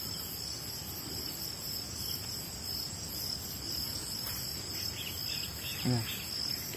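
Night insects, crickets, chirring in a steady high-pitched trill. A short murmured human voice comes in about six seconds in.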